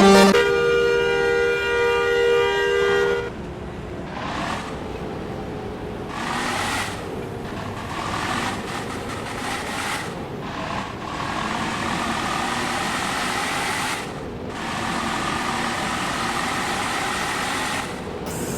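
Indonesian bus 'telolet' multi-tone air horn holding one chord for about three seconds and then cutting off. After it comes a steady noisy background with several swells and short dips.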